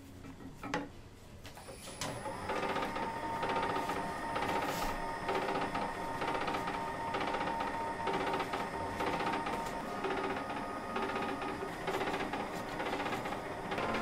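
A single sharp click, then a small machine starts about two seconds in and runs steadily, with a whirring hum and a fast, even clatter.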